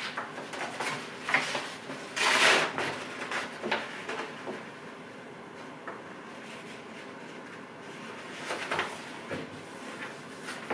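A sheet of wallpaper rustling as it is fitted by hand against the back panel of a wooden sideboard cupboard and smoothed flat, with a few light knocks against the wood. The loudest rustle comes about two seconds in.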